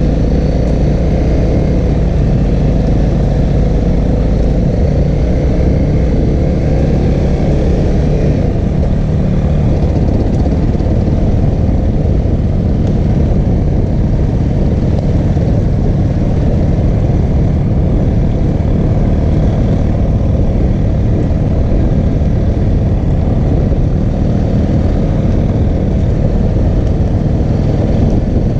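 Single-cylinder four-stroke engine of a 2014 Honda CRF250L dual-sport motorcycle running steadily at trail speed, heard from a helmet-mounted camera with heavy low rumble.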